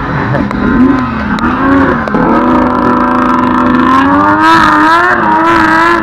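Loud two-stroke snowmobile engines running and revving, their pitch wavering up and down and climbing over the last few seconds.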